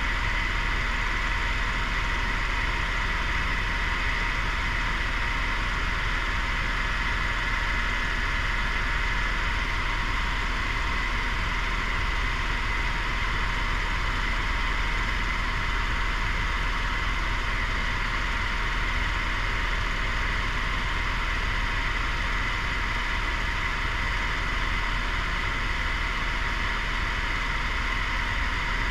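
Helicopter in level flight heard from inside the cabin: a steady drone of turbine and rotor, with a constant high whine over it.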